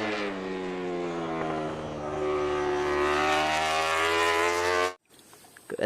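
Motorbike engine sound effect: a steady engine drone that dips slightly in pitch at first and then holds, cut off abruptly after about five seconds.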